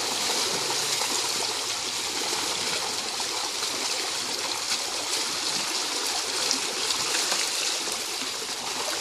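Water splashing and churning steadily as a mass of large fish thrash at the surface, feeding on floating vegetable leaves.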